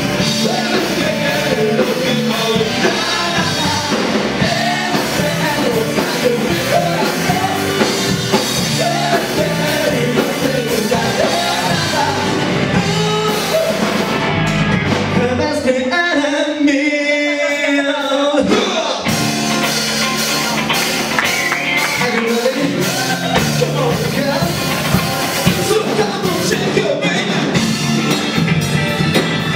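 Live rock band playing: a lead singer over electric guitar, bass guitar and drums. A little past halfway the bass and drums drop out for about three seconds, leaving a wavering held note, then the full band comes back in.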